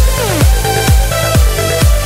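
Electronic dance music with a steady four-on-the-floor kick drum, about two beats a second, under held synth chords.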